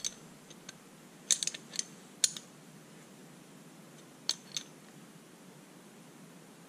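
Light metallic clicks and taps of a moped fuel tap's small parts being handled and tightened back together: a few single clicks, with a quick cluster about a second and a half in.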